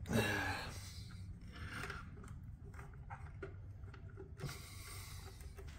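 Wiring being handled and tucked in around a motorcycle's battery box: faint rubbing and scraping with scattered small clicks, after a brief louder rustle right at the start.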